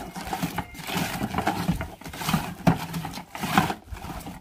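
Cabbage being shredded on a kraut board: the box of cabbage pushed back and forth over the steel blades, scraping and slicing in a rhythm of about two strokes a second.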